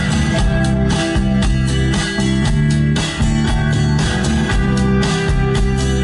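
Music with a steady beat playing through a 2015 Jeep Grand Cherokee Limited's nine-speaker amplified sound system with subwoofer, heard inside the cabin.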